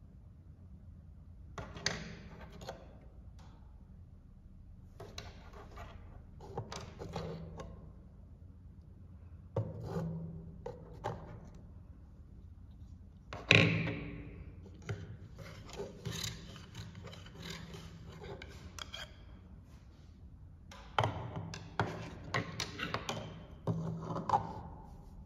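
Small plastic toy pots, lids and utensils being handled: clusters of light clicks, taps and rubs as pieces are picked up, set down and fitted together, with one sharper clack a little past halfway.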